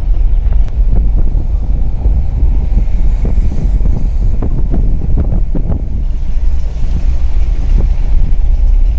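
Wind buffeting the microphone over the low rumble of a vehicle driving on a rough dirt track, with scattered knocks and rattles.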